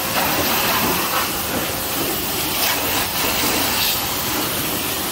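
Pressure washer jet spraying water onto a motorcycle's fairing and fuel tank: a steady, loud hiss.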